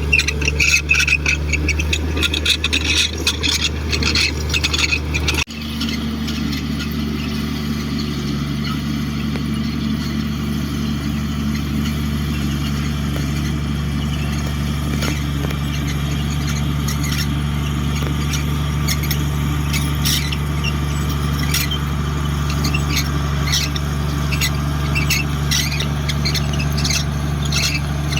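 Komatsu D58 crawler bulldozer's diesel engine running steadily, with high squeals and clicks over it that are thickest in the first five seconds. The sound breaks off abruptly about five seconds in, and the engine then runs on more evenly with scattered squeaks.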